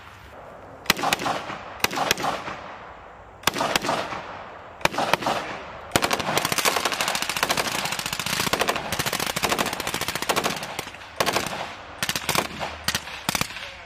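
Rifle fire on a firing range. First a few spaced single shots, then about four seconds of rapid, overlapping fire from several rifles, then scattered shots again near the end.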